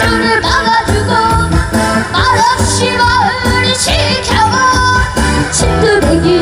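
A male singer performing a Korean trot-style song with wavering, sliding vocal lines over full band accompaniment with a steady beat.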